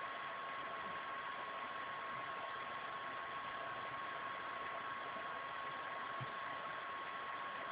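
Steady hiss with a thin, constant high whine: the recording's background noise, with no speech or activity sounds over it apart from one faint low bump about six seconds in.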